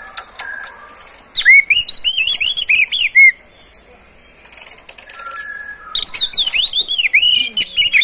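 Oriental magpie-robin (kacer) singing: two loud runs of quickly repeated, arching whistled notes, one starting about a second and a half in and another at about six seconds. Softer held whistles and brief raspy bursts come between them.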